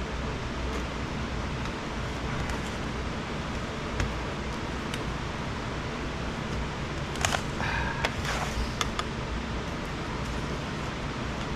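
Screwdriver prying and scraping at the glued-on rubber base of an Apple Wi-Fi base station: scattered faint clicks, with a short cluster of sharper clicks and squeaks a little past halfway, over a steady low background hum.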